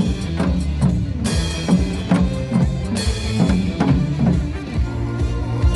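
Music with a strong drum beat and bright crashes about every one and a half seconds: a janggu (Korean hourglass drum) played along with a backing track.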